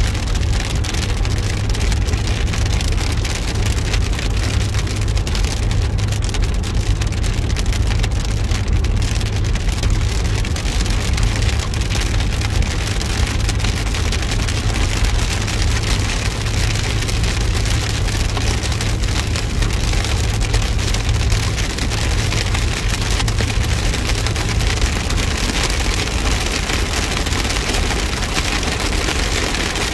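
Rain hitting a moving car's windshield and body, heard from inside the cabin, with the hiss of tyres on the wet road over a steady low rumble from the car.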